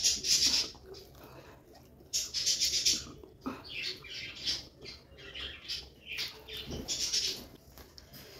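Close-miked eating sounds: wet chewing and lip smacking on a mouthful of chicken biryani, in repeated crackly bursts about a second long.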